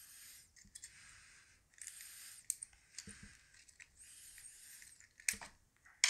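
Faint handling of an opened Master Lock No. 5 laminated steel padlock and its shim: a few small metallic clicks and scrapes, the sharpest near the end, with a soft hiss every couple of seconds.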